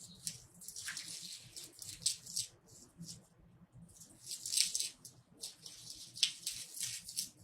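Faint, irregular crackling and rustling of dry papery garlic skins as a garlic bulb is peeled and pulled apart by hand.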